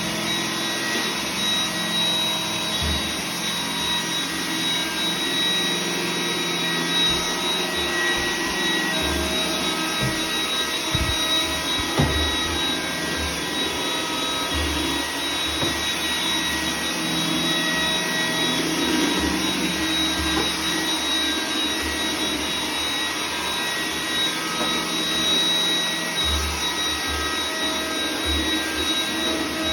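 iRobot Roomba 980 robot vacuum running: a steady motor hum with a high whine, irregular low thumps and a sharp click about twelve seconds in.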